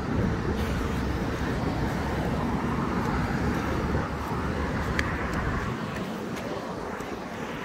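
Road traffic noise: a passing vehicle's low rumble that fades away about six seconds in.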